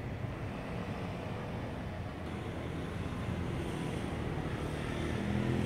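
Steady low rumble of outdoor street and traffic noise, with no distinct events.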